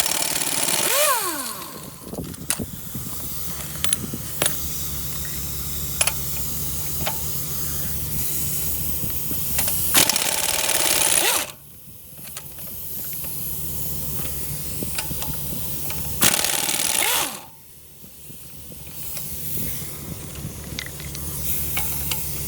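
Pneumatic tool work: a steady mechanical hum with scattered clicks, broken by loud hissing bursts of air, one at the start, one about ten seconds in and one about sixteen seconds in, each cutting off suddenly.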